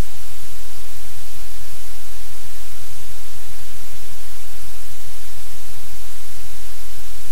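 Loud, steady static-like hiss that does not change, with no other sound standing out.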